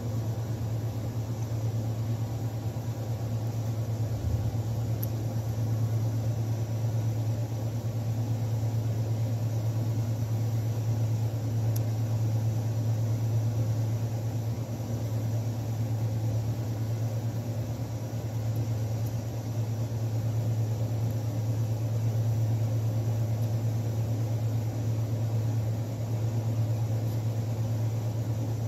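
A steady low machine hum with a faint rushing noise over it, unchanging throughout.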